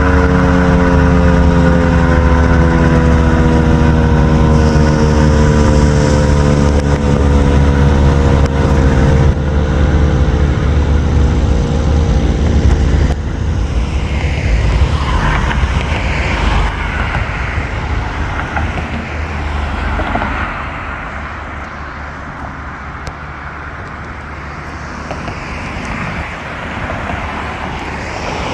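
Federal Signal 2001-130 rotating outdoor warning siren winding down as its 90-second attack signal ends: its tone falls steadily in pitch and fades out over about twelve seconds. Road traffic runs underneath and carries on after the siren dies away.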